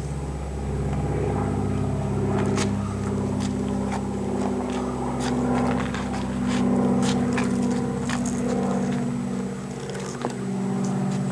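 A motor running steadily at a fairly even pitch, with scattered clicks and rattles over it and one sharper click near the end.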